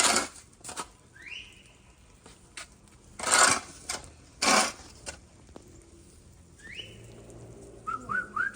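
Loud crunches in icy slush, three or so, with two short rising whistles between them and three quick rising chirps near the end.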